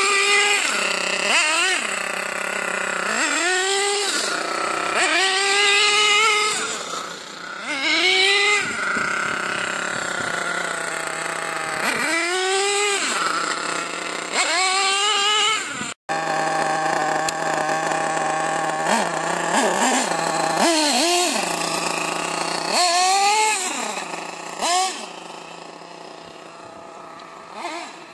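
Small nitro glow-fuel engine of a radio-controlled off-road car, revved up and down over and over as it is driven. Its pitch rises sharply and falls back to a steady idle every second or two, and it grows fainter near the end.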